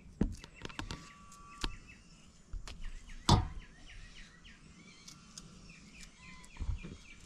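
Scattered knife cuts and knocks as dasheen leaf stems are trimmed, the loudest a little past three seconds in. A bird chirps a run of short repeated notes through the middle.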